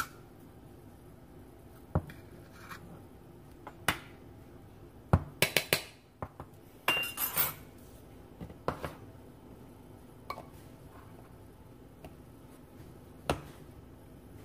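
A metal measuring teaspoon clinks against a baking powder tin and a small ceramic dish in scattered sharp taps, with a quick run of taps and a brief scrape about halfway through.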